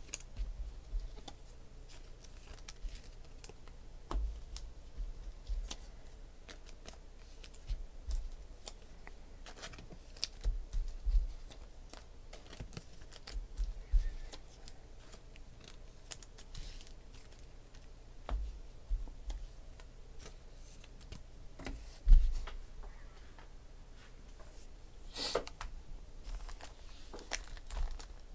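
Quiet handling of trading cards and foil pack wrappers on a table: scattered soft taps, clicks and rustles, with one louder knock about three quarters of the way through.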